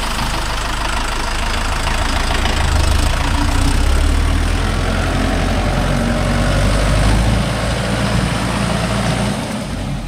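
Mahindra Yuvo Tech+ 585 tractor's diesel engine running as the tractor moves off. It gets a little louder in the middle, then eases off near the end.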